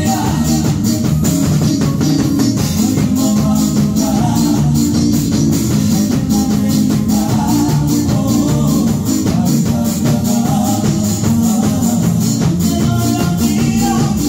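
Small live band playing with a steady beat: drum kit, electric guitars and keyboard, with a man singing into a microphone over it.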